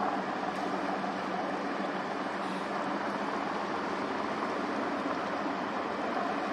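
Ship engines running steadily, a low even hum under a constant hiss of wind and water.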